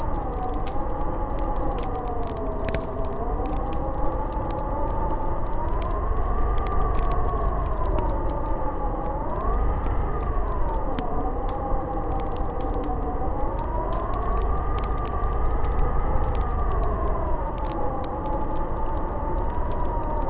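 Snowstorm wind howling, a whistling tone that slowly rises and falls in pitch over a deep rumble, with scattered faint ticks.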